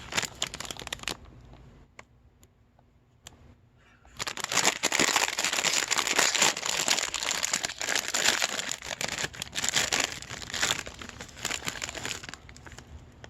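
A crinkly snack bag being handled and opened, likely to get at the Crispy Minis inside. A short rustle comes at the start, then several seconds of dense, continuous crinkling from about four seconds in.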